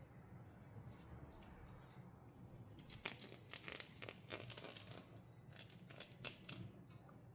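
Toy packaging being handled and opened: faint crinkling and quick, sharp crackles in two clusters, about three and six seconds in.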